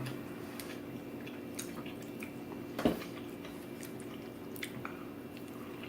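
Close-up chewing and wet mouth sounds of someone eating a slice of pizza, with scattered small clicks and one louder knock about three seconds in, over a steady low hum.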